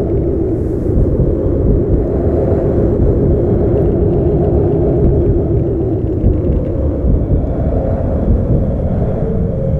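A steady, deep rumbling drone of a spooky Halloween ambience, with a few low held tones wavering over it.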